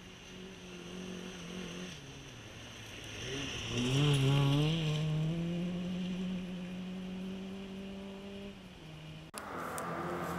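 Fiat Cinquecento rally car's engine: its note sags, then climbs steeply about four seconds in as the car accelerates, and holds a steady higher pitch until it cuts off abruptly near the end.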